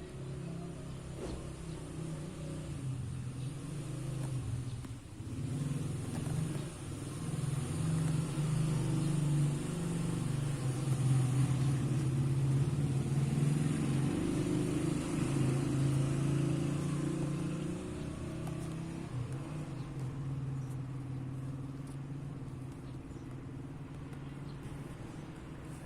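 Low, steady engine rumble that grows louder toward the middle and then slowly fades.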